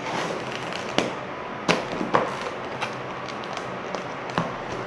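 A piece of slime being squeezed and pressed in the hands, giving several sharp pops and clicks, the loudest about a second in, near the two-second mark, and near the end.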